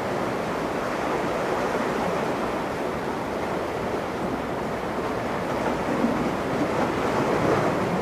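Steady rushing of sea surf and water, with wind buffeting the microphone, a little louder near the end.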